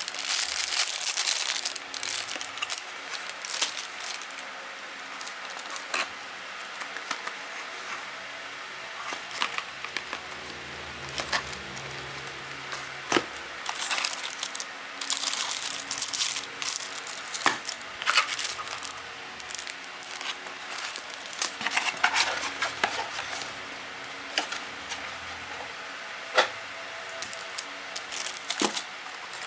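Packaging and small plastic parts being handled by hand: irregular crinkling, tapping and clicking, over a faint steady hum.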